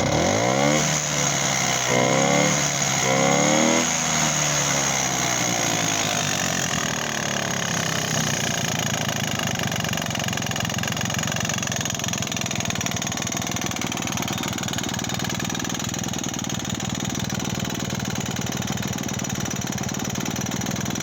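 Sachs 98 two-stroke single-cylinder engine of a Wanderer 11AS, blipped three times in the first four seconds, then idling steadily with a rattle.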